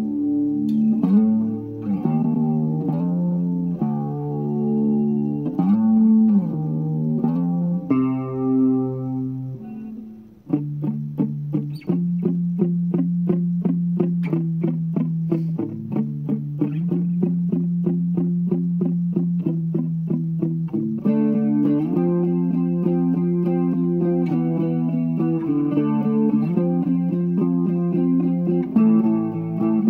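Background instrumental music: held chords at first, then, after a brief drop about ten seconds in, quickly repeated picked notes over a steady bass note, growing fuller near the end.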